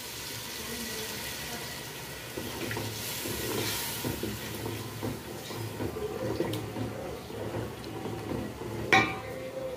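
Milk poured into a metal pot of frying tomato and onion sauce, then a wooden spoon stirring it through the wet sauce, scraping and sloshing against the pot. A sharp knock comes near the end.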